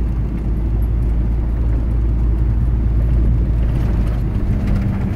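Motorhome driving, heard from inside the cab: a steady low rumble of engine and road noise, with the engine's hum coming up again near the end.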